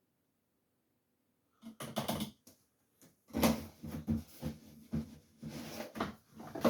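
A run of irregular clunks and rattles, starting about two seconds in, from things being handled while the washing machine is loaded.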